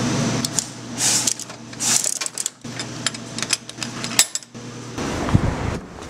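Coin-operated capsule toy vending machine being worked by hand, its metal coin-and-crank mechanism clicking and rattling in a run of short clicks.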